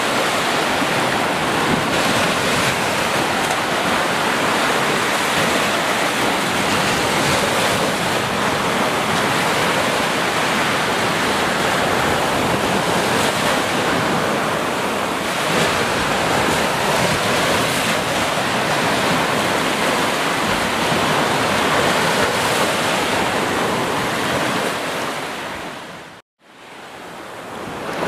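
Sea surf breaking and washing up a sandy beach, a steady rush of waves. Near the end the sound fades out to silence for a moment and fades back in.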